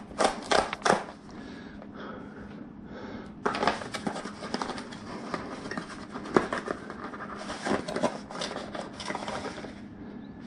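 A small cardboard product box being torn open along its perforated strip, paper-faced card crackling and ripping. There are three sharp tears in the first second, then a longer run of tearing and rustling from about three and a half seconds to near the end.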